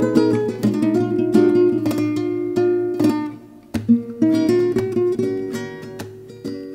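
Background music on a plucked acoustic guitar, single notes and chords picked in quick succession.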